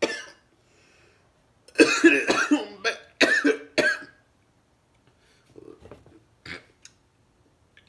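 A man coughing in short, loud fits, the loudest cluster a couple of seconds in and fainter coughs near the end, set off by extremely spicy fried chicken.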